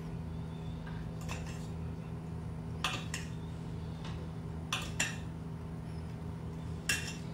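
A few light clinks of a utensil or the coated piece against a small stainless steel pot of melted chocolate, spaced out over a steady low hum.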